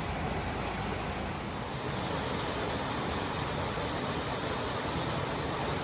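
Steady rushing water of a mountain stream, an even noise that does not change in level.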